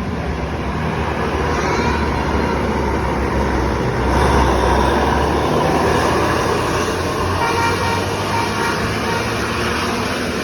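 Road traffic with a bus's engine rumbling as it passes, loudest about four to five seconds in. Faint short horn toots sound near the end.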